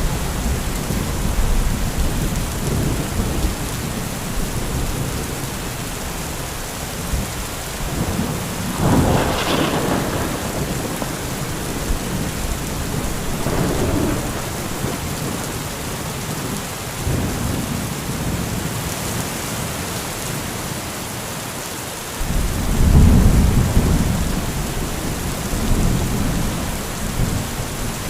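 Heavy rain falling steadily with rolling thunder. A sharper thunderclap comes about a third of the way in, and a louder, deep rumble of thunder builds near the end.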